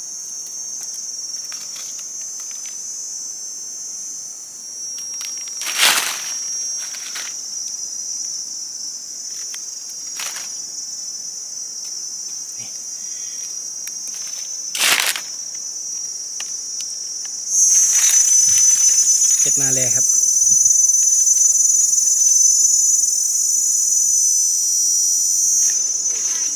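Insect chorus: a steady high-pitched buzzing that grows louder about two-thirds of the way through. Two sharp crackles cut in, a third and about halfway in.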